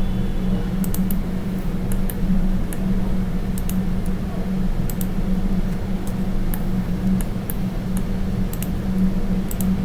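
Computer mouse clicks and keyboard key presses: short sharp clicks at irregular intervals, roughly one or two a second, over a steady low hum.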